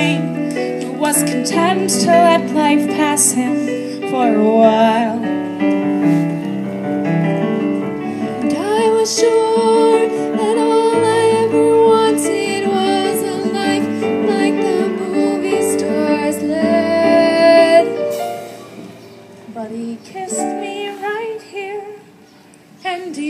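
A female voice singing a musical-theatre song over keyboard accompaniment, with long held notes sung with vibrato; the music grows softer about three quarters of the way through.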